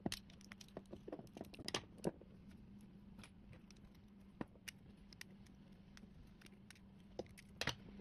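Faint metallic clicks and scrapes of a small screwdriver and fingers working apart a Toyota door lock assembly, a cluster of them in the first two seconds and a few more later on.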